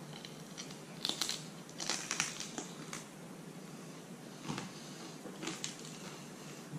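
Biting and chewing through the crispy shell of a deep-fried blue crab: several short, crackly crunches spaced irregularly about a second apart.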